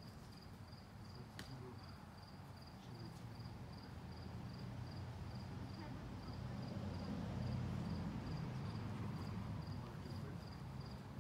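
Crickets chirping steadily, a high pulsed note about three times a second, over a low rumble that grows louder in the middle.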